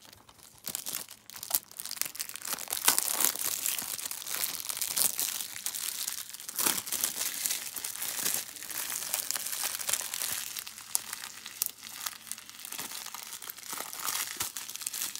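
Plastic shrink wrap crinkling and tearing as it is peeled off a Blu-ray case, a dense run of crackles starting about half a second in.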